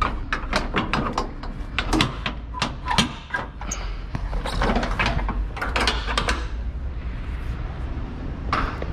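Metal clanks and knocks from the front end of a curtainsider trailer's side curtain and its upright pole being handled, a quick irregular run of sharp strikes for the first six seconds or so and one more near the end, over a low steady rumble.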